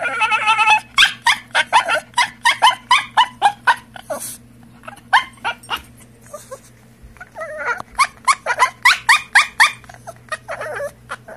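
Small dog whining so shrilly that it sounds like screeching: one held cry at the start, then runs of short, rising, high-pitched whines about four a second, with a brief pause in the middle.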